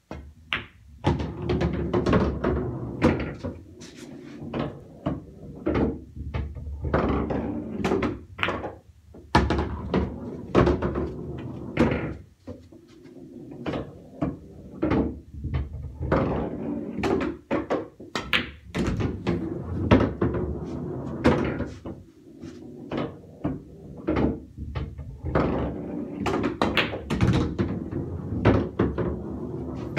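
Pool balls in play on a bar-box pool table: sharp clicks of cue tip and ball-on-ball contacts and knocks off the cushions, with pocketed balls dropping and rolling through the table's enclosed ball return in thuds and a low rumble.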